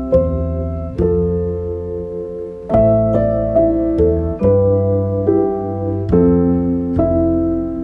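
Calm piano music: single notes and chords struck every second or so, each left to ring out.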